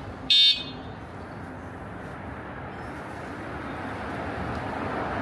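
A short, loud electronic beep a few tenths of a second in, followed by a steady rushing noise that grows louder toward the end.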